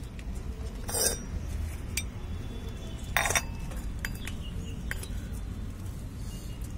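A small metal spoon clinking and scraping against miniature metal pots as cooked rice is scooped out and tipped into a small bowl. There are a few sharp clinks, the loudest about a second in and a double clink just after three seconds.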